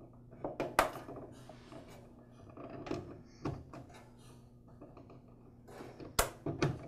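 Insulated quick-connect wire terminals being pushed onto the spade terminals of a Skil 3305 table saw's power switch: scattered sharp clicks and handling noises, the loudest pair near the end.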